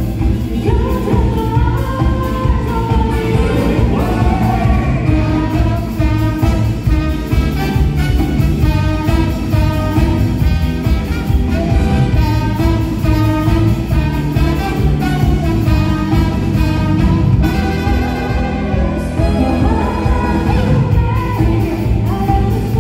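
Live band playing a song with a steady beat and a melody line over it.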